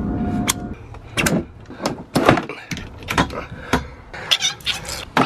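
Metal quick-connect hose fittings clicking and clanking as a garden hose and a pressure-washer spray gun are handled and coupled up: a string of short, sharp knocks at uneven intervals.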